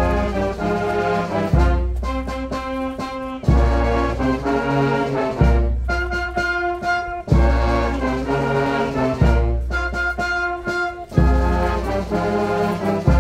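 Brass band playing slow, solemn music in sustained chords, with a new chord and a deep low note about every two seconds.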